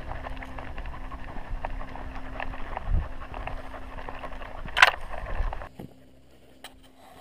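Handling noise from a camera strapped to a trotting dog's harness: steady rumble and rustle with many small knocks, and one sharp clack about five seconds in. The sound drops suddenly to a low hush near six seconds.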